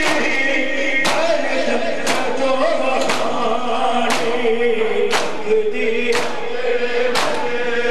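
A crowd of men chanting a noha in unison, with a sharp slap of open hands striking bare chests about once a second: matam, the ritual chest-beating of Muharram mourning.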